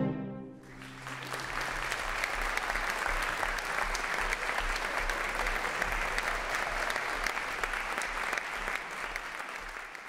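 Concert audience applauding. It swells in about a second in, as the last chord of a cello orchestra rings away, and fades near the end.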